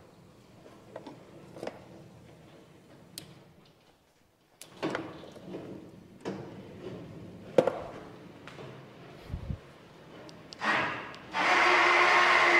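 Scattered metal knocks and rubbing clunks, then near the end the homemade sawmill's power feed runs: its electric motor drives the mill head along the steel rails by roller chain, a loud steady mechanical whir lasting about two seconds before it fades.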